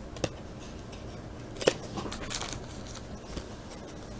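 Trading cards and plastic being handled: two light clicks, then a brief crinkle about two seconds in.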